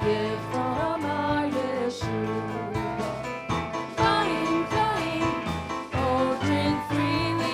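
Worship music: a band playing with voices singing over it.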